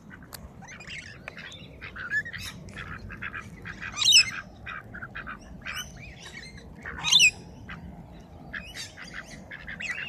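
Rainbow lorikeets screeching and chattering, with duck calls among them: a string of short, shrill bird calls, the loudest about four and seven seconds in.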